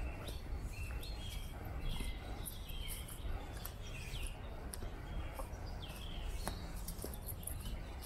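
Small birds chirping, many short calls with some quick downward-gliding notes, over a steady low background rumble. Irregular light crackles run through it, fitting footsteps on dry leaf litter.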